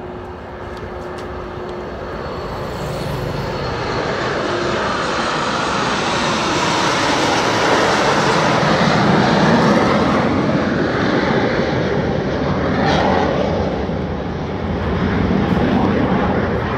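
A formation of jet aircraft flying past. The jet engine noise builds steadily over several seconds as the formation approaches, is loudest about halfway through, dips briefly, then swells again near the end.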